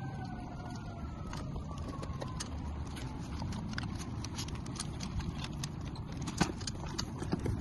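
Two puppies, a German Shepherd and a Belgian Malinois, eating kibble and raw chicken from stainless steel bowls: steady chewing and crunching with many quick, irregular clicks of teeth and food against the metal.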